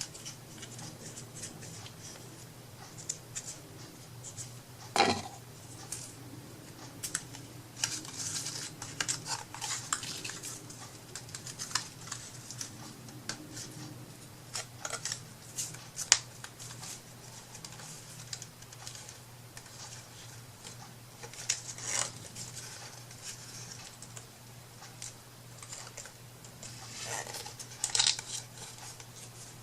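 Hands working small wooden craft pieces and trims at a table: scattered sharp clicks and short rustles, with a few louder clicks, over a steady low hum.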